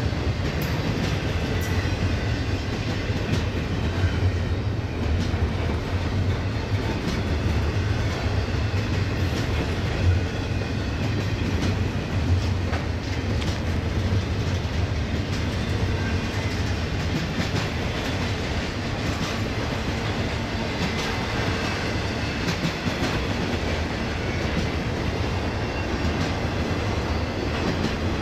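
Intermodal freight cars of a BNSF stack train, double-stack container cars and then trailer flatcars, rolling past in a steady low rumble, with irregular wheel clicks and clacks over the rail.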